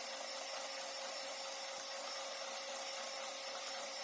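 Electric hand mixer running at a steady speed with an even motor whine, its beaters whisking margarine, sugar and oil into a thin batter in a bowl.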